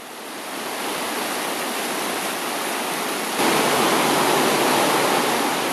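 Fast, steep mountain stream rushing over rocks and pebbles, a steady rushing wash of water that gets louder about three and a half seconds in.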